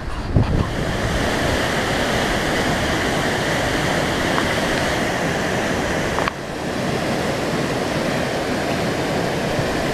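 Mountain waterfall pouring down rock into a pool: a loud, steady rush of falling water. Brief wind buffeting on the microphone at the very start, and a short break in the sound about six seconds in.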